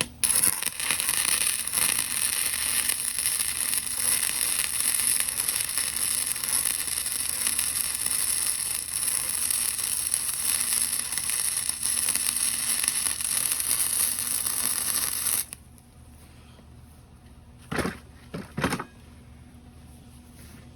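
Electric arc welding: a continuous crackling, sizzling arc while a weld bead is laid, cutting off suddenly about three quarters of the way through. Two short bursts of the same kind of noise follow a couple of seconds later.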